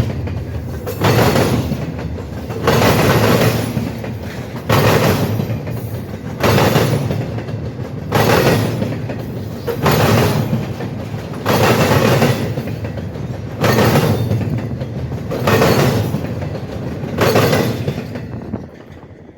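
Train cars' wheels clattering over a railroad crossing diamond: a loud burst of banging about every two seconds as each car's trucks cross, over a steady rolling rumble. The train dies away near the end.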